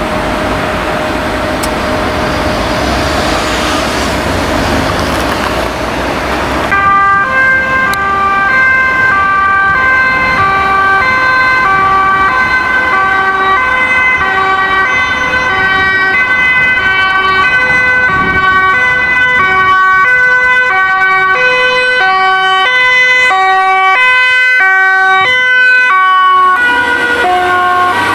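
Two-tone siren of a Dutch fire-service officer's van, switching back and forth between a high and a low pitch, the tones shifting lower near the end as the van passes. For the first six seconds or so there is only the road noise of a vehicle driving by.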